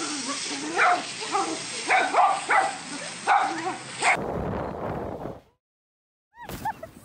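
Small dogs barking in short, sharp yaps, about seven barks over the first four seconds. Then comes a cut to a rough rumbling noise, which gives way to a second of silence and faint short chirps near the end.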